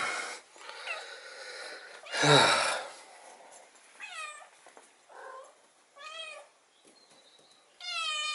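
Bengal cats meowing: several short, high, arching meows, about four, six and eight seconds in. Near the start and about two seconds in there are two louder, rough, noisy sounds.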